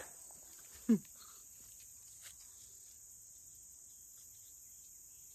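Steady high-pitched chorus of insects, with a short grunt from a man about a second in.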